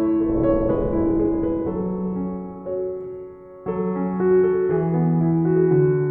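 Background music: soft piano playing slow, sustained chords.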